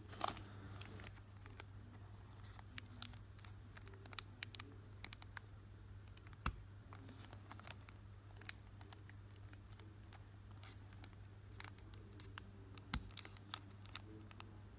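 Foil wrapper of a Pokémon trading card booster pack crinkling and clicking under the fingers as it is handled and turned over, with a louder crinkle right at the start and scattered sharp crackles after. Near the end, fingers pick at the pack's top edge to start opening it.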